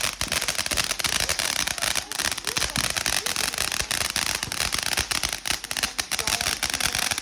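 Fireworks crackling: a dense, rapid stream of sharp pops without a break.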